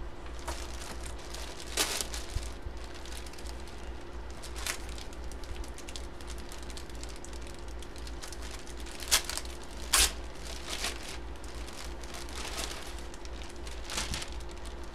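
Clear plastic packaging crinkling as it is handled, in scattered sharp crackles, the loudest about nine and ten seconds in. A steady low hum runs underneath.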